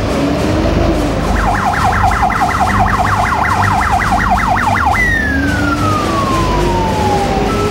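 Fire engine's electronic siren in a fast yelp, about six sweeps a second, switching about five seconds in to one long falling tone, over the low rumble of the vehicle.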